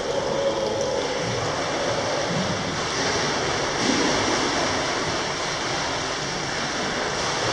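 Steady rushing noise of an indoor swimming pool hall, from the pool water and the building's air.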